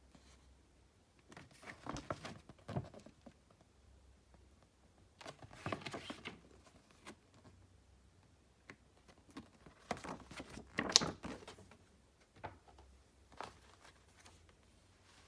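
Hands handling album packaging: rustling and crinkling in three bursts, with a sharp click about eleven seconds in and a couple of light ticks after it.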